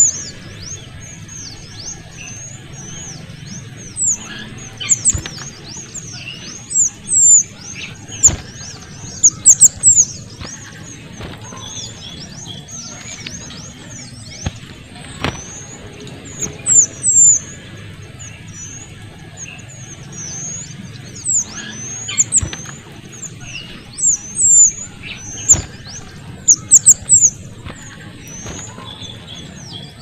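Kuniran (mantenan kecil), a small songbird, singing a busy, very high-pitched song of quick thin chirps, with louder flurries every few seconds.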